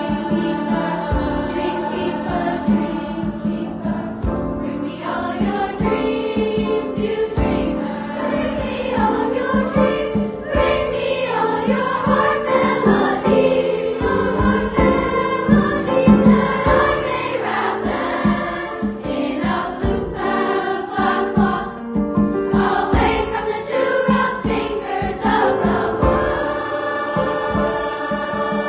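Choir singing, several voice parts in harmony.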